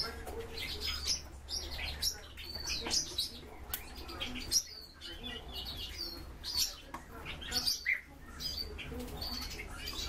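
Several caged birds chirping and twittering in a stream of short, quick, high notes, with a steady low hum underneath.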